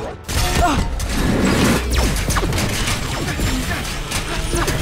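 Action-film sound mix: music under a dense run of crashes and sharp impacts, over a steady low rumble.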